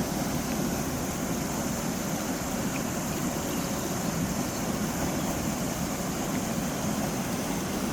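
Rain-swollen creek rushing fast over its bed: a steady, even rush of flowing water with a strong current.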